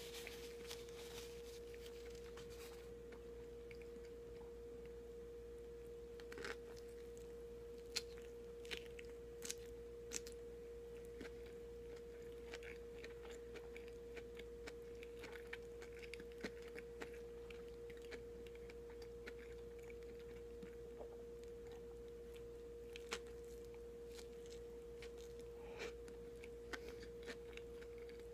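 Faint close-miked chewing of a soft white-bread sandwich, with scattered small wet mouth clicks, over a steady faint hum. A paper napkin rustles briefly in the first couple of seconds.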